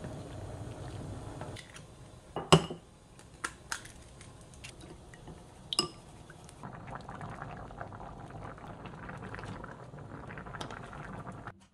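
Spicy broth simmering in a frying pan while wooden chopsticks stir noodles and beat egg, with a few sharp chopstick knocks against the cookware; the loudest comes about two and a half seconds in. The sound cuts off suddenly just before the end.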